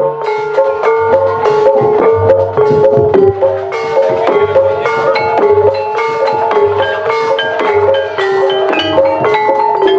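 Gamelan music for an Ebeg horse dance: tuned mallet-struck instruments play a busy, evenly pulsed melody over a regular low drum beat.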